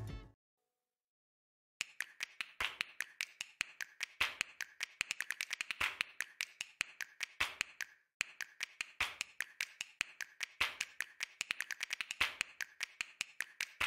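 A fast run of sharp, short clicks, several a second, starting about two seconds in after a brief silence and pausing briefly about halfway.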